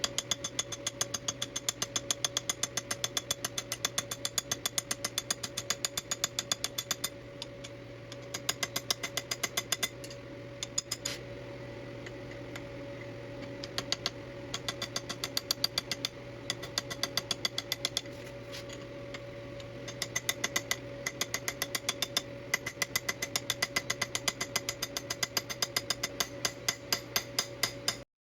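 Mechanical power hammer rapidly striking the end of a thin-walled tube to forge it into a ball, several blows a second, in runs broken by short pauses, over the steady hum of the machine's motor. The hammering cuts off suddenly near the end.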